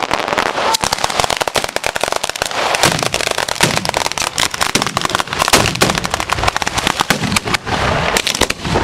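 Ground barrage of firecrackers (a batteria alla bolognese) going off in a dense, rapid stream of bangs and crackles, with a few louder bangs standing out, the loudest about halfway through.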